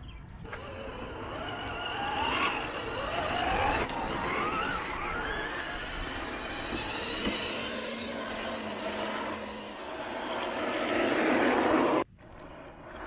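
Electric motor and gears of a scale RC crawler whining, the pitch rising and falling with the throttle, over a steady hiss of the tyres working through water and stones. The sound stops abruptly near the end.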